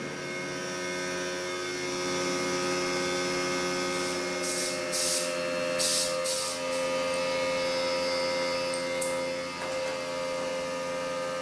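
Air compressor running with a steady hum while a bicycle inner tube is partly inflated through its Presta valve to seat the tire bead. Several short hisses of air come around the middle and one more about three quarters through.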